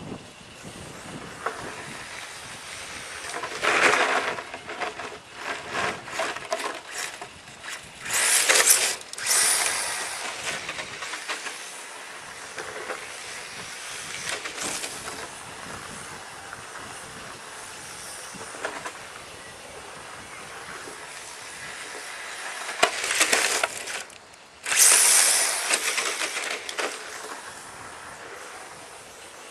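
HPI Sprint 2 RC drift car with a brushless motor, running and sliding on its drift tyres across asphalt: motor whine and tyre scrub. It gets loud in a few close passes, around four seconds in, around nine seconds in, and again from about twenty-three to twenty-six seconds in.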